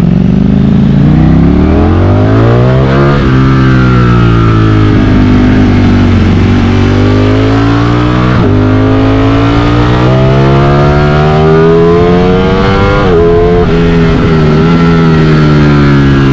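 Ducati Streetfighter V4's V4 engine accelerating up through the gears. Its pitch climbs and drops sharply at each upshift, about 3 and 8.5 seconds in, and again briefly around 13 seconds before it runs on at a steadier pitch.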